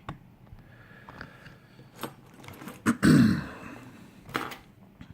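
Handling noise as a camera is repositioned: scattered light clicks and knocks, a sharp click just before three seconds in followed at once by a loud, rough burst lasting about half a second, and another short knock a little after four seconds.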